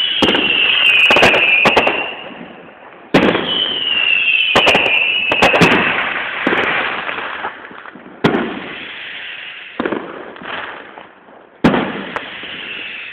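Fireworks display: loud aerial shell bangs a few seconds apart, each followed by a long crackling hiss that slowly fades. After the first bursts the hiss carries a high, slightly falling whistle-like band.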